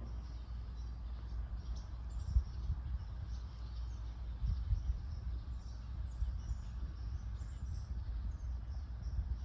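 Outdoor ambience of small birds chirping, many short, high, thin calls, over a steady low rumble that bumps louder twice, about two and a half and four and a half seconds in.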